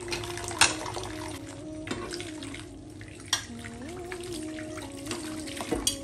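Tap water running into a stainless steel sink while a plate is scrubbed by hand under the stream, with a few sharp clinks of dishes, the loudest about half a second in and another just past three seconds.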